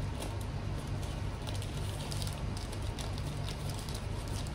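Faint crinkling and rustling of a plastic mailer bag being handled, with scattered small crackles over a steady low hum.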